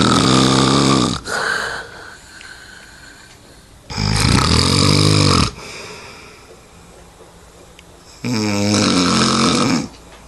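A sleeper snoring loudly and regularly. A long snore, already under way, ends about a second in and is followed by a short quieter one; two more long snores come about four seconds apart, each lasting about a second and a half.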